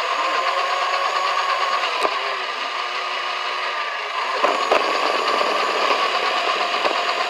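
Steady mechanical whirring noise with a few sharp clicks, growing a little louder and rougher about four and a half seconds in.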